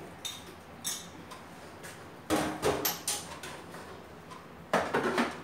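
Kitchen handling sounds: a spoon knocking against a blender jar as chopped banana is scraped in, then clatter of the jar being lifted and seated on the blender base, loudest about two and a half seconds in and again near the end. The blender is not yet running.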